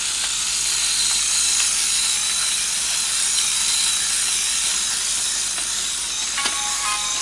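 Small LEGO electric motor and plastic gearing whirring steadily with a hiss as it turns a LEGO carousel. A short melody comes in near the end.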